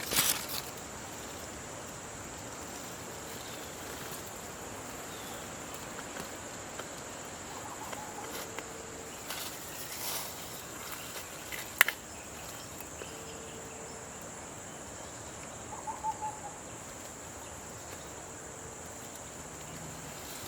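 Steady insect chorus with a thin, high, continuous tone, a few short bird chirps, and two sharp cracks, one right at the start and the loudest about twelve seconds in.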